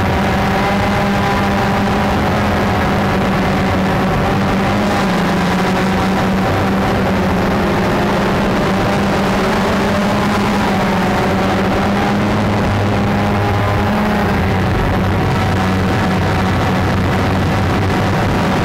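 Cheerson CX-20 quadcopter's electric motors and propellers whining steadily, heard close-up from the camera mounted on the drone. The pitch shifts slightly now and then as the drone drops and climbs.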